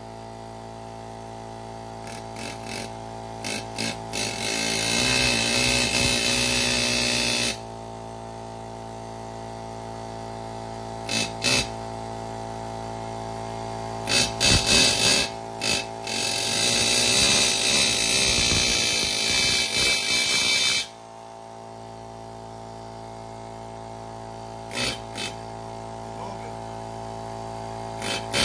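Pneumatic air chisel hammering at a wheel stuck fast on its hub: several short bursts and two longer runs of several seconds each. Under it, a portable air compressor hums steadily.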